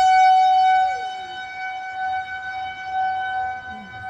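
Federal Signal 2001-130 outdoor warning siren sounding a steady alert tone at one held pitch. Its loudness swells and fades slightly as the siren head rotates.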